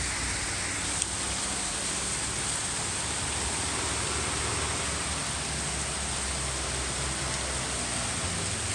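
Heavy rain pouring down in a steady, even hiss: a downpour.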